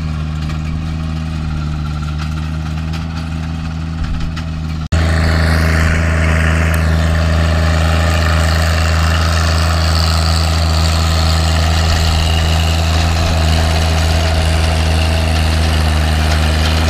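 John Deere 1025R compact tractor's three-cylinder diesel running steadily under load while driving a rear rotary tiller through wet sod. It becomes suddenly louder and closer about five seconds in, with the tiller's churning noise mixed in.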